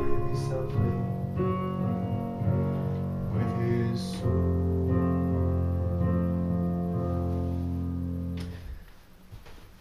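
Keyboard playing slow held chords over a deep bass line. The final chord dies away about a second before the end.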